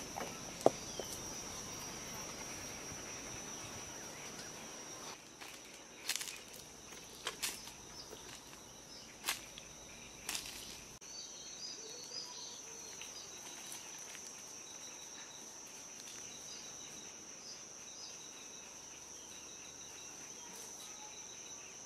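Steady high-pitched insect trill, like crickets, with a few sharp clicks or rustles between about six and ten seconds in and faint short chirps in the second half.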